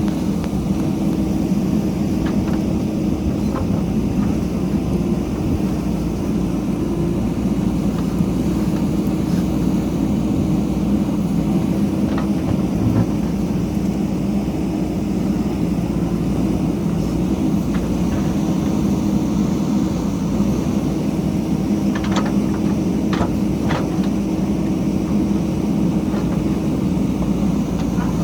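JCB backhoe loader's diesel engine running steadily with a low drone, with a few sharp knocks a little over three-quarters of the way through.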